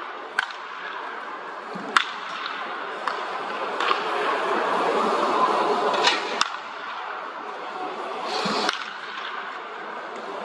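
Wooden baseball bats cracking against balls in batting practice: several sharp cracks a second or two apart, over a steady murmur of background noise.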